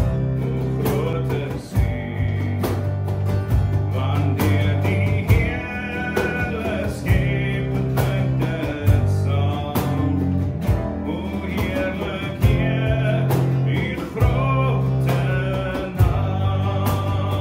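Afrikaans worship song: a sung vocal over guitar, bass and drums with a steady beat.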